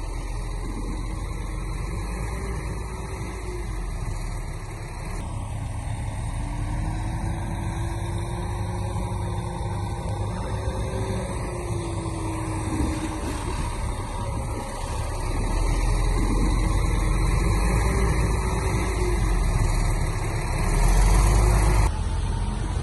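Heavy construction machine's diesel engine running steadily, getting louder about two-thirds of the way through.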